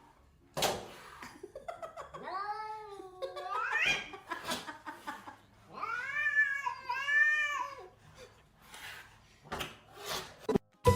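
A cat yowling in two long, drawn-out calls that waver in pitch; the first rises at its end. A few sharp knocks come between the calls.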